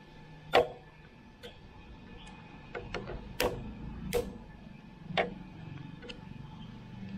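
Irregular sharp clicks and knocks of hand tools and metal parts as a motorcycle is taken apart, about nine in all, the loudest about half a second in.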